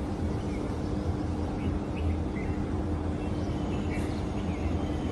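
Outdoor morning ambience: a steady low rumble with a faint even hum under it, and scattered short bird chirps, a few more of them near the end.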